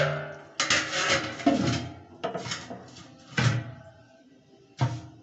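A steel lid clanking against the rim of a steel kadhai as it is set in place: several sharp metal knocks, roughly a second apart, each ringing briefly.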